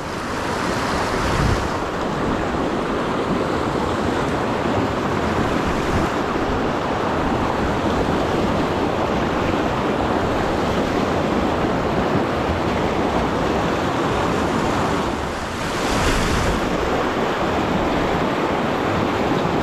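Fast-flowing mountain creek rushing steadily, with a short surge of hiss about sixteen seconds in.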